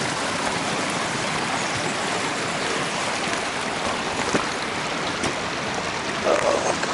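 Mountain stream water rushing steadily, an even wash of noise, with a few brief louder bits near the end.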